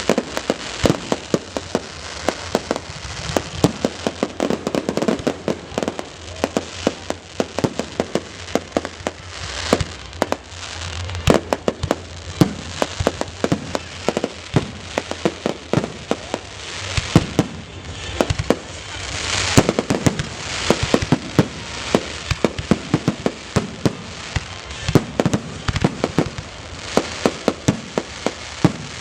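Fireworks display: a rapid, unbroken series of bangs and crackling bursts from aerial shells, several every second.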